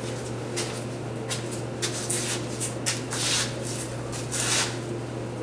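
A series of short rustling and scraping handling noises at a wood lathe, over a steady low electrical hum.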